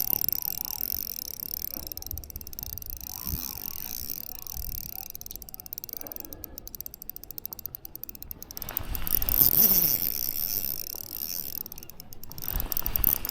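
Shimano Vanford spinning reel clicking and whirring as a hooked steelhead is played, in spells of rapid clicks: one about halfway through and another near the end.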